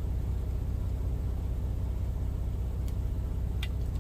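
Steady low rumble of a semi truck's diesel engine idling, heard from inside the cab, with a couple of faint clicks near the end.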